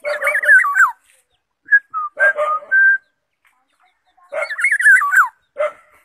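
Black-naped oriole (kepodang) calling: two warbling phrases of gliding whistled notes mixed with harsher, rougher notes, each about a second long, one at the start and one about four seconds in, with short single whistles in between.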